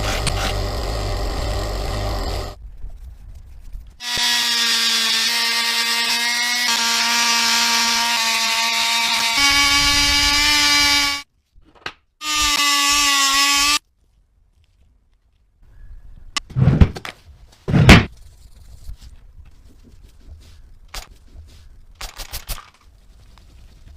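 A small electric power tool, such as a drill or rotary tool, runs with a steady whine that steps up in pitch twice, stops, and runs again briefly. After a pause come two loud knocks and a few light clicks as parts are handled.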